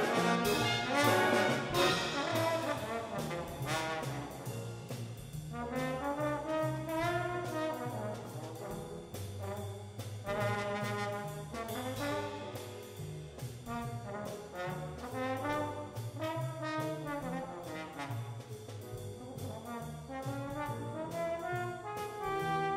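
Jazz ensemble playing: a loud full-band brass passage for the first few seconds, then a single brass solo line weaving up and down over the rhythm section's steady bass and cymbal beat.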